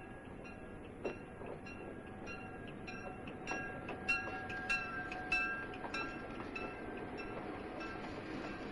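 Bell dinging steadily about twice a second, loudest in the middle, while a rushing rumble builds near the end: a railroad crossing bell with a train drawing near.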